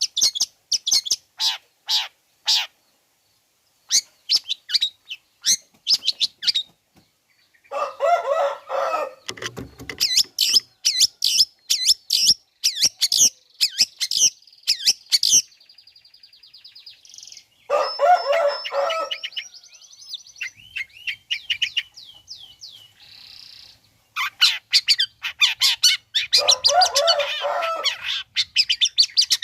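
Long-tailed shrike singing: quick runs of sharp, high notes broken by bursts of harsh, scratchy chatter, with a fast, buzzy trill about halfway through.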